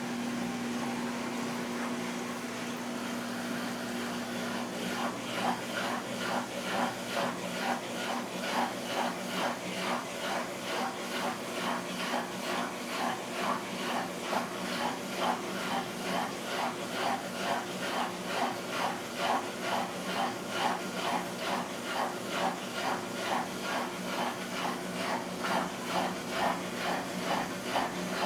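Brastemp 14 kg washing machine running with a steady motor hum. About four seconds in, its wash action starts a regular swishing about twice a second, the back-and-forth agitation of the wash cycle.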